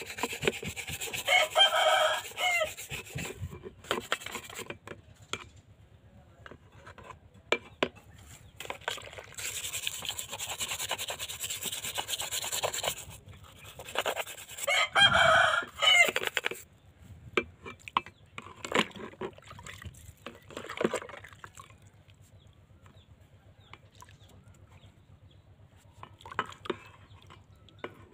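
A stiff scrub brush scouring a metal motorcycle footrest bracket over a bucket of soapy water in quick rasping strokes for the first half, then a few scattered clicks of handling. A rooster crows loudly twice, about a second in and again about halfway through.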